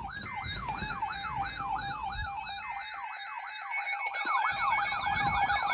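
Electronic yelp siren, its pitch sweeping rapidly up and down about four times a second, marking the start of an emergency alert broadcast. The sweeps quicken and the level rises near the end, with low thumps underneath.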